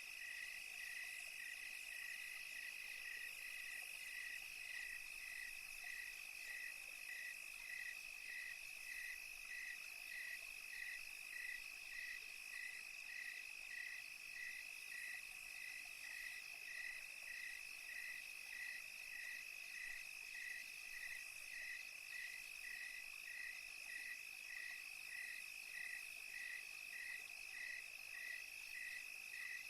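Crickets at night: one high, continuous trill with a second, regular chirp pulsing about twice a second beneath it.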